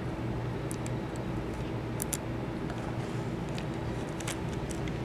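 Clear tape being slowly peeled back on itself off a fiberglass beam, giving a few faint, sharp crackles over a steady low room hum.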